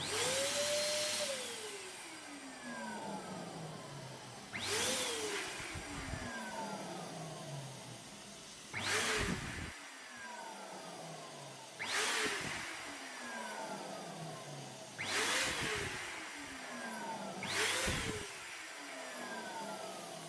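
Electric balloon pump motor switching on and whining, its pitch sliding steadily lower as the balloon fills and loads it. A balloon bursts five times, about every three to four seconds, and each time the motor's pitch jumps back up as the load drops.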